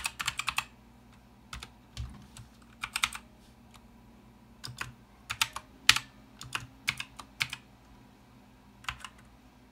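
Typing on a Redragon K580 RGB Pro full-size mechanical keyboard with Outemu switches: short bursts of key clicks with pauses between them. One keystroke a little past the middle is louder than the rest.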